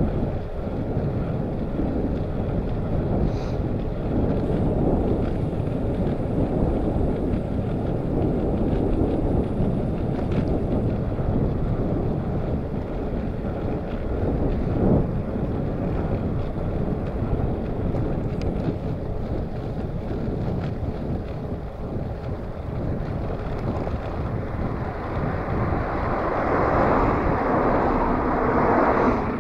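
Wind buffeting the microphone of a handlebar-mounted camera on a moving bicycle: a steady low rumble, swelling into a louder rush near the end.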